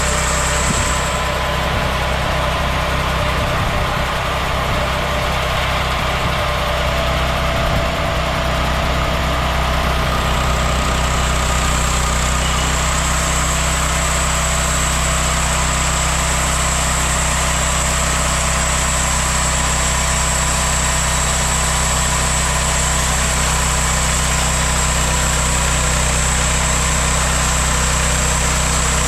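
Homemade band sawmill running steadily, its engine note constant and a thin high whine riding above it.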